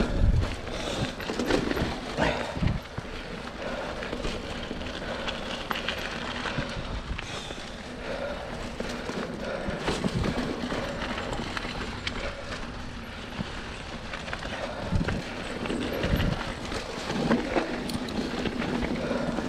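Mountain bike rolling along a dirt singletrack trail: tyre noise on the ground, with the bike rattling and knocking over bumps and roots again and again.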